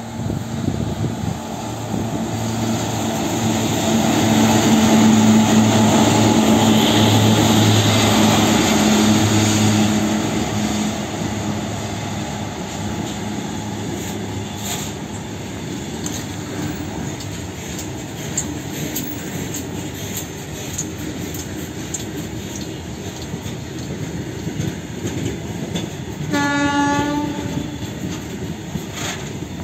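WAG-7 electric locomotive passing close with a steady electric hum, loudest about five to ten seconds in, followed by a long rake of freight wagons rumbling and clattering over the rails. A short horn note sounds near the end.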